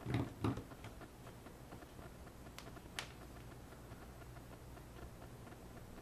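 Hands knocking lightly on a MacBook Pro's aluminium palm rest at the start, then two sharp key clicks less than half a second apart near the middle, over a steady low hum.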